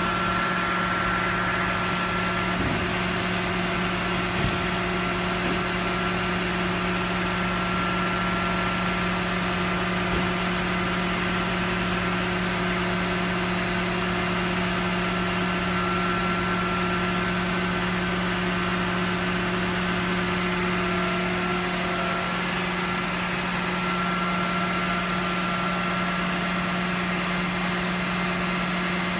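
Large floor drum fan running steadily: an even whooshing rush with a constant low motor hum.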